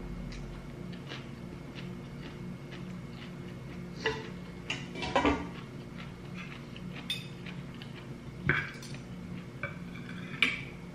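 Metal spoon and fork clinking and scraping against a ceramic plate while eating, a scatter of sharp clinks, most of them in the second half.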